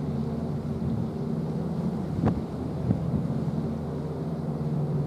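Steady low drone of distant ships' engines across the water, with a sharp click a little over two seconds in and a lighter one just after.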